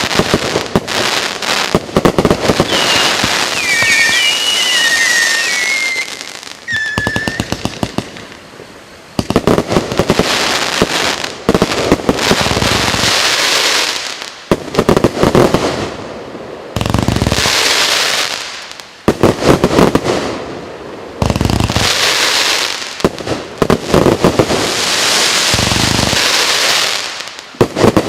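A multi-shot firework cake (box MC132) firing in rapid volleys of bangs and crackles, coming in several bursts with short lulls between them. Whistling tones rise and fall over the cracks a few seconds in.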